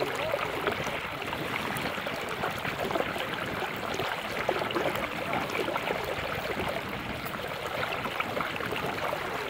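Steady rushing, trickling water noise with fine crackling.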